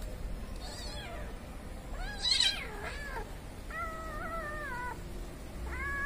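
Kittens meowing: a faint meow, then the loudest one about two seconds in, falling in pitch, a long drawn-out meow around four seconds in, and another starting near the end.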